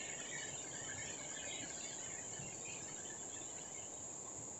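Rainforest insects with a steady high-pitched drone and scattered chirping that thins out after the first couple of seconds, over a faint low rushing background.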